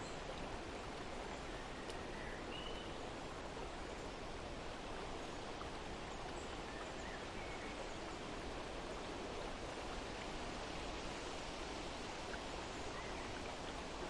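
Steady outdoor nature ambience: an even rushing noise with a few faint, short bird chirps scattered through it.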